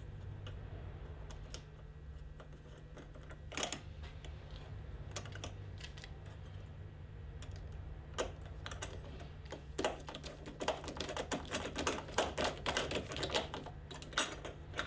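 Light clicks and taps of a Phillips screwdriver and plastic turn-signal cowling and lens parts being handled on a scooter. There are a few scattered clicks at first, then a dense run of them through the second half, over a steady low hum.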